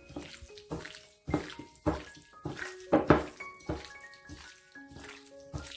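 Wet squelching and sloshing of shredded pork being mixed by hand in its marinade of soy sauce, starch slurry and oil, in a run of irregular strokes about every half second to second, over background music.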